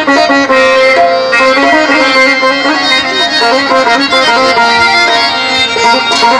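Live instrumental interlude of traditional Pothwari folk music: sitars and other instruments playing a flowing melody over sustained notes, with no singing.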